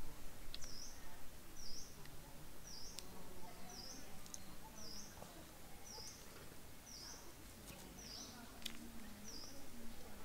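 A small bird repeating one short, high chirp at an even pace, about three calls every two seconds, over quiet outdoor ambience.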